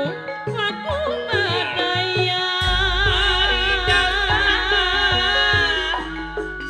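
Sundanese gamelan music with a sinden singing a wavering, ornamented melody over metallophones and hand-played kendang drum strokes. A deep gong stroke comes in about two and a half seconds in and keeps ringing.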